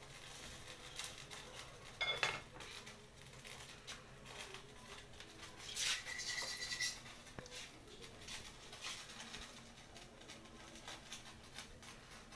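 Faint clicking and light metallic clinking as a small dog moves about on a tiled floor on a chain leash, with two louder brief rattles about two and six seconds in. A short high steady tone sounds just after the second rattle.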